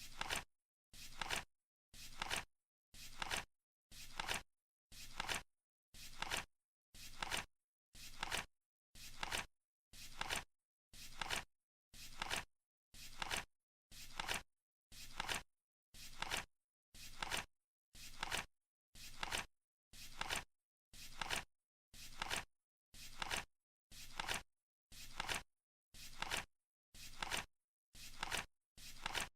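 Flip clock's cards flipping over once a second, a short clattering flap each second with silence between.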